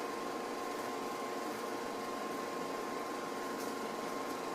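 Steady hum of a running heater's fan, with a few fixed tones over an even hiss. A couple of faint ticks come near the end.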